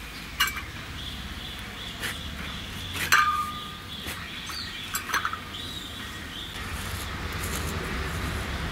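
A knife cutting and prying into a halved tender green jackfruit, giving four or five sharp clicks and knocks, the loudest a little past three seconds in with a brief metallic ring after it.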